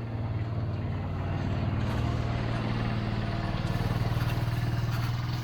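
Kawasaki Mule 610 utility vehicle's engine running steadily as it pulls a ground-leveling drag over loose soil.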